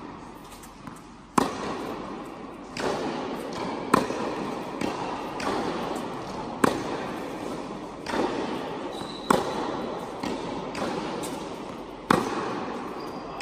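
Tennis ball struck by a racket in a baseline rally. There are five loud, sharp hits about every two and a half seconds, with fainter knocks from the far end of the court in between. Each stroke echoes in the indoor hall.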